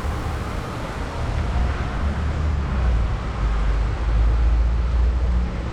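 Wind buffeting the microphone: a low rumble over a steady hiss, swelling about two seconds in and again near four seconds.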